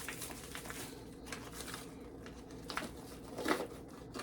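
A knife working at food or a package in the kitchen: scattered light scrapes and taps, the clearest about three and a half seconds in, over a faint steady hum.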